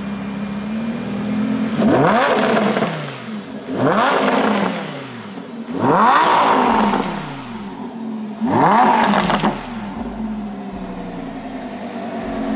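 Lamborghini engine idling and then revved four times, about two seconds apart. Each rev climbs sharply in pitch and then falls back to idle.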